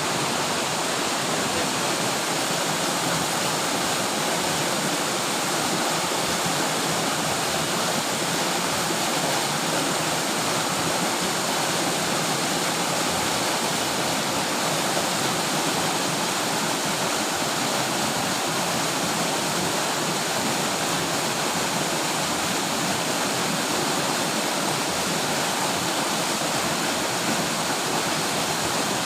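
Rushing water of a mountain river: a steady, unbroken rush of flowing water.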